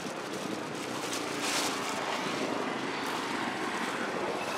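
A steady, even drone of a distant engine.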